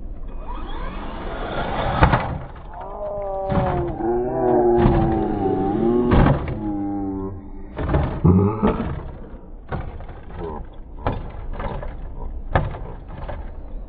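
Electric RC car's motor whining as its throttle is revved up and eased off, with a string of knocks and thuds as the car lands off a jump and tumbles across the grass.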